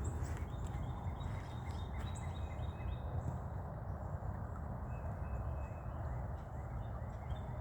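Birds chirping in short, repeated high calls over a steady low rumble.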